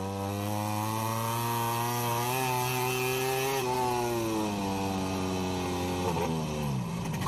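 Onboard sound of a Ducati Desmosedici MotoGP bike's V4 engine, its note rising slightly and then falling away over the last few seconds. The revs are dropping as the bike loses speed and goes down in a crash.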